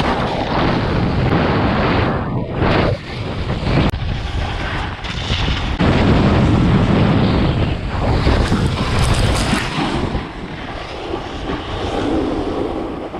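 Wind rushing over an action camera's microphone during a snowboard run, with the board scraping and sliding over icy snow; the rushing swells and eases unevenly.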